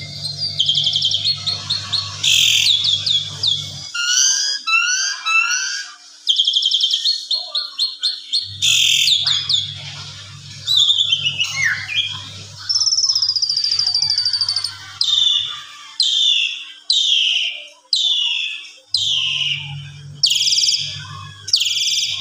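Asian pied starling (jalak suren) in full song: a loud, varied run of fast repeated whistles, trills and chatter, changing phrase every second or two, and in the second half a series of falling whistled notes about one a second.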